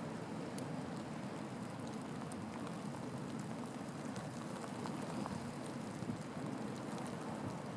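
Wind blowing steadily across a field of long dry grass: a continuous rushing noise with a few faint ticks.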